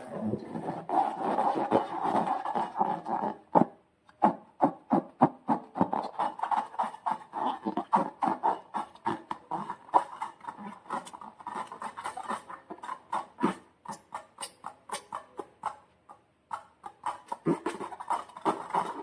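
Slime being squished and stretched by hand: a dense run of quick clicks and squelching noises, with short pauses about four seconds in and near the end.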